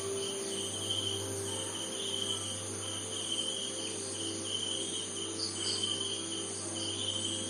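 Crickets chirping in short repeated trills over a steady high insect drone, with a low steady hum underneath.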